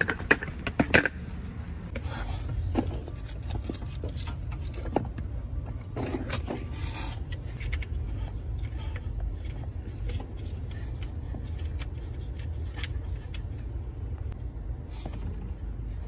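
Hand work on a van's fuel-injected engine while a fuel pressure gauge is hooked up to the fuel rail: sharp clicks in the first second, then metal scraping and handling noises around two and six seconds in, over a steady low rumble.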